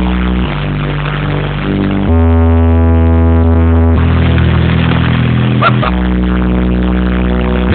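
Zeus car subwoofers in a ported box playing loud sustained bass notes that step to a new pitch every second or two, with a plastic bag over the port fluttering in the blast of air from it.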